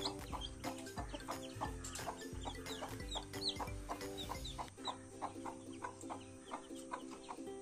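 Newly hatched chicks peeping in many short, high, falling chirps, with a hen clucking, over background music whose low beat drops out a little past halfway.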